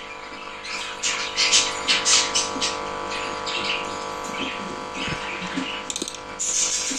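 Lovebird chicks chirping in short, sharp high calls that come in clusters, loudest in the first few seconds, over a steady electrical hum. A quick run of clicks comes about six seconds in.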